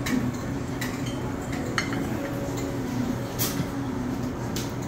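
Cutlery clinking against ceramic bowls and plates during a meal: about five sharp, separate clinks over a steady low murmur of room noise.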